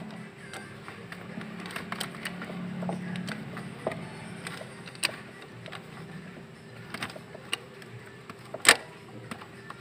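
Metal tools clicking and clinking on an engine while a hand works a socket on an EGR valve mounting bolt, with a sharp metallic knock near the end. A steady low hum runs underneath.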